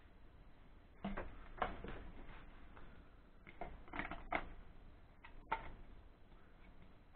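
Thin plastic mayonnaise bucket being cut with a utility knife and then handled: a handful of sharp plastic clicks and scrapes, the loudest about a second and a half in.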